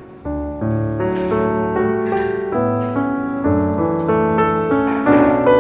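Background music: a piano melody over held chords, coming in about a quarter of a second in.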